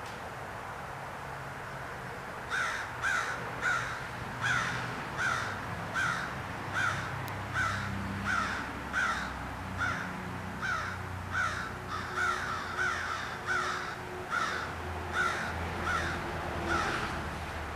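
A crow cawing over and over in a long, regular series of short, harsh calls, about one and a half a second, starting about two and a half seconds in and stopping near the end.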